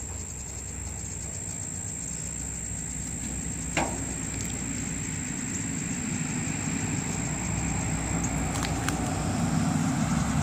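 Steady rumble of a road vehicle, growing gradually louder through the second half. A single sharp click about four seconds in.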